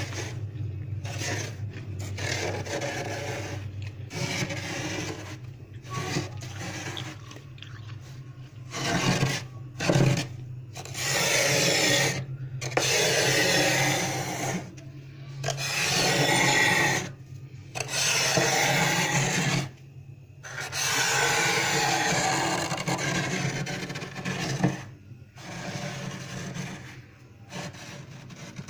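Thick frost being scraped off the inside walls of a freezer with a metal tool. The scraping comes in repeated rasping strokes, each a second or two long with short pauses between, loudest in the middle stretch.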